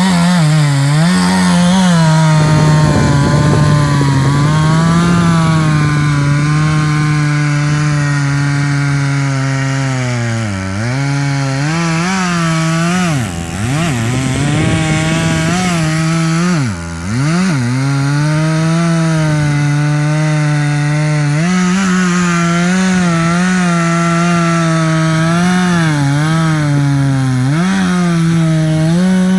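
Gas chainsaw running at high revs while cutting through wood. Its pitch wavers as the chain loads in the cut, and it drops sharply twice, about 13 and 17 seconds in, as the engine bogs down, then recovers.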